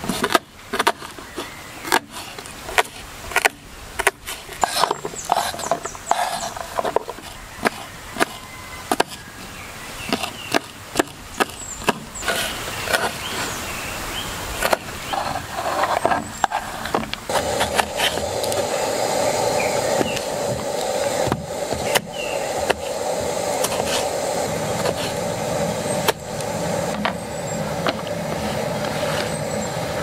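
A run of sharp wooden snaps and knocks at irregular intervals, as of sticks and kindling being broken and handled. From a little over halfway through, a steady rushing sound with small crackles takes over until near the end.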